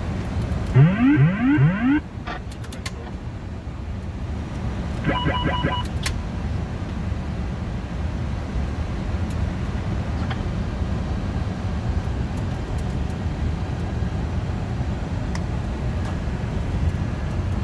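Steady flight-deck noise of a Boeing 747-400 on approach, a low rush of airflow and engine hum. About a second in, three quick rising wailing tones sound, and around five seconds in a rapid string of short beeps.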